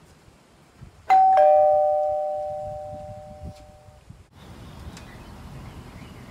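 Doorbell chime ringing a two-note ding-dong about a second in: a higher note, then a lower one, both ringing on and fading away over about three seconds.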